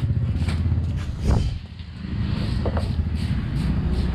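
An engine running steadily, briefly dipping in level about a second and a half in. A few short knocks and creaks come from the plastic bodywork being pulled on the motorcycle.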